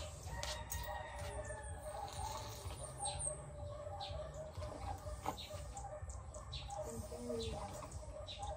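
Birds calling in the background over a low steady rumble, with a run of short high falling chirps about three seconds in. A single sharp click comes a little after five seconds.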